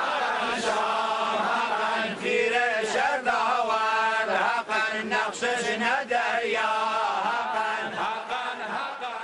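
Chanted vocal music: a voice sings a winding melody over a steady low drone. It begins to fade out near the end.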